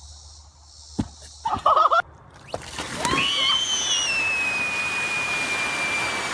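A knock and a brief loud cry in the first two seconds, then a rush of water surging across a lawn from a burst above-ground pool, with a long high scream held over it that slowly sinks in pitch.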